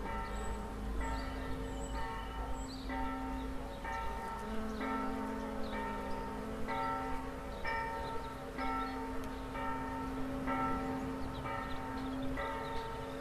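Church bell tolling about once a second, each strike ringing on over a steady low hum. The bell is swung by an electric motor.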